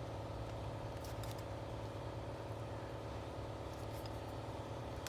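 A few faint light clicks from pliers working at the plastic housing clips of a Bosch GOP 12V-28 cordless multi-tool, over a steady low hum.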